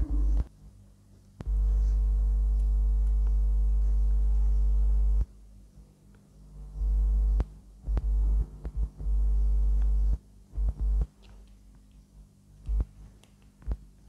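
A low, steady electrical hum with a stack of overtones that cuts in and out abruptly: once for about four seconds, then in shorter spells. Faint small clicks come from a screwdriver working the screw terminal of a DC barrel connector.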